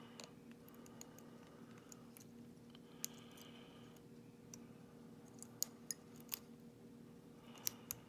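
Faint, scattered small metallic clicks and taps of a padlock and lock-picking tools being handled, over a steady low hum.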